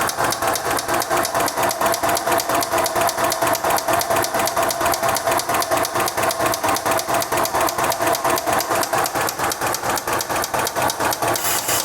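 2001 Volkswagen Jetta A4's 2.0-litre four-cylinder engine running with a rapid, evenly repeating knock. It is rod knock from a connecting-rod bearing that has worn out.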